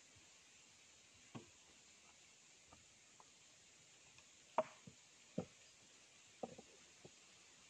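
A long-handled digging tool striking into earth: a handful of dull thuds and knocks at uneven spacing, the loudest a little past the middle, with a quick pair near the end.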